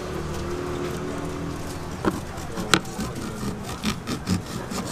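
A steady low background hum, then from about two seconds in a few sharp knocks of a knife on a wooden cutting board, one standing out louder than the rest.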